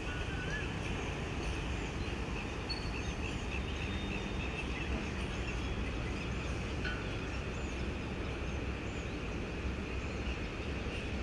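Steady low rumble of distant city traffic, with small birds chirping briefly here and there and a wavering whistled call right at the start.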